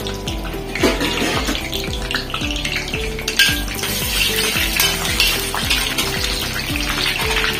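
Whole spices and dried red chillies sizzling in hot ghee in a steel wok, the sizzle picking up about a second in, with a metal spatula scraping and stirring against the pan. Background music with a steady beat plays underneath.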